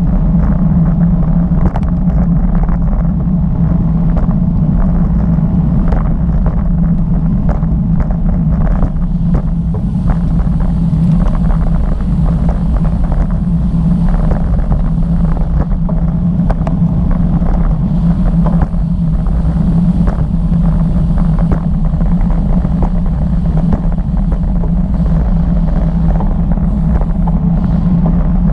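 Steady road rumble and wind noise on a bicycle-mounted GoPro at riding speed, with many small clicks and rattles from the road surface.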